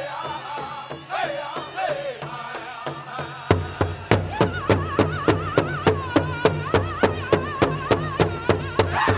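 Pow wow drum group singing a chicken dance song, several voices together over a large powwow drum. The drumming is light at first, then about a third of the way in it turns loud and steady at about four beats a second.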